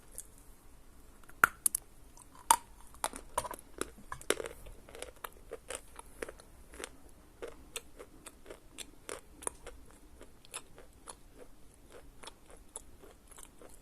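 A lump of Khrapovsky edible chalk being bitten off and chewed: two sharp loud cracks of the first bites, then a run of irregular dry crunches as it is chewed.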